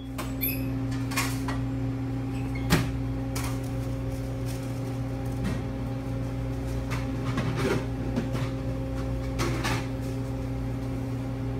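Steady low machine hum from sandwich-counter equipment, with a handful of light knocks and clicks from food being handled, the sharpest about three seconds in.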